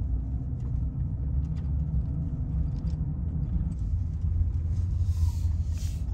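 Chevy Express camper van driving: a steady low rumble of engine and road noise heard inside the cab, with a brief rise in hiss about five seconds in.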